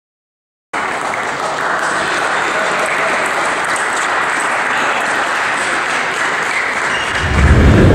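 Spectators applauding in a sports hall: a steady, dense clapping that cuts in suddenly about a second in. A louder, deeper rumble joins near the end.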